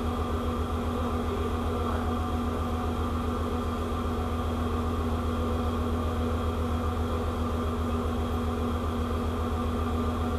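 Steady drone of a ship's machinery: a constant low hum with several steady tones above it, unchanging throughout.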